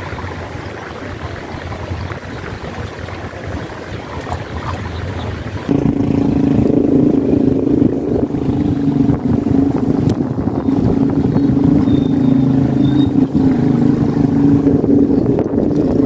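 Wind rumbling on the microphone, then, after an abrupt change about six seconds in, a loud steady motor hum with a low drone that runs on unbroken.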